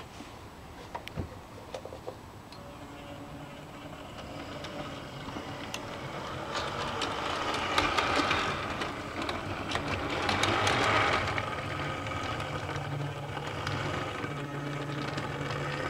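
OO gauge Ivatt 2-6-0 model locomotive, re-motored with a 5-pole armature, running under radio control on three-rail track. The motor and gears hum steadily, the wheels click over rail joints and points, and the sound grows louder as the train comes close.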